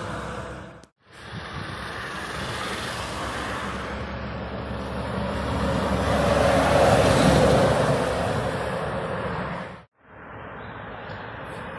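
Heavy lorries driving past on a road. The engine and tyre noise of a DAF timber lorry loaded with logs swells as it passes and is loudest a little past the middle. The sound drops out briefly twice, about a second in and near the end, where the clips cut.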